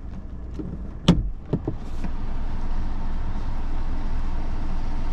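Inside a parked car: a low steady rumble with a few sharp knocks about a second in, then from about two seconds a steady rushing hiss.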